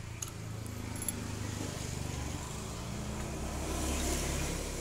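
A passing road vehicle's engine, a low rumble that swells to its loudest about four seconds in and then begins to fade. A couple of faint metallic clicks from small parts being handled come near the start.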